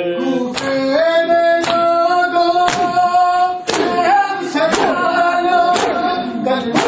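A noha (Shia mourning lament) sung by men's voices holding long notes, with the congregation's matam: open hands striking bare chests together in a steady beat about once a second.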